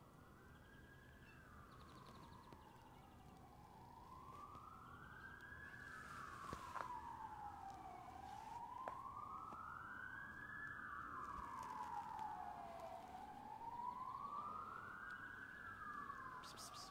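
Emergency vehicle siren in a slow wail, its pitch rising and falling about every five seconds and slowly growing louder.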